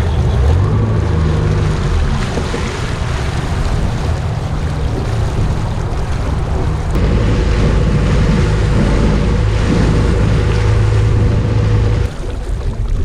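Wind buffeting the microphone over the sound of lake water, steady and fairly loud; the sound changes abruptly about seven and twelve seconds in.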